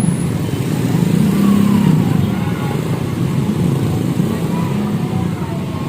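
Road traffic: vehicle engines running steadily, with a continuous low rumble.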